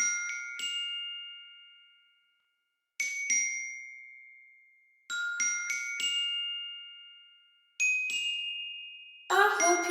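Music: a melody of bright, bell-like chime notes in short phrases of two to four notes about every two and a half seconds, each phrase ringing and fading away. Near the end, a fuller arrangement with lower instruments comes in.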